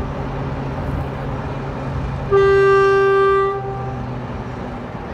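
Train horn sounding one long single-note blast, about a second and a half long, a little over two seconds in, over a steady low hum.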